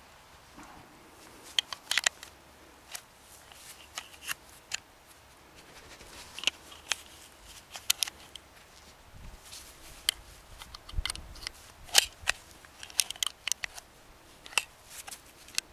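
Plastic Glock magazine loader being pressed down and released on a Glock 17 magazine while 9mm rounds are pushed in one after another: sharp plastic and metal clicks and snaps in small clusters every couple of seconds.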